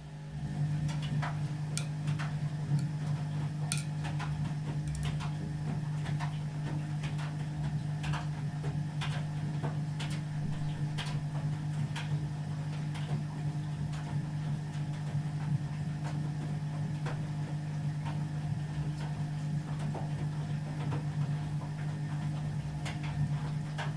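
Ardo washing machine's new drain pump switching on about half a second in and running with a steady low hum, with light irregular ticks and clicks over it.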